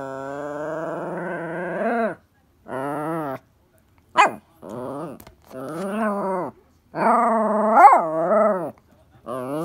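Toy poodle 'talking': a string of about six drawn-out, grumbling whine-moans that bend up and down in pitch, with one short sharp yelp about four seconds in, the dog pestering insistently for its ball.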